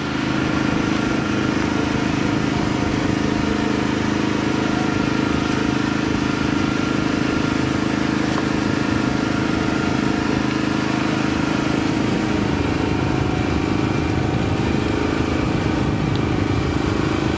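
Fishing boat's engine running at a steady speed.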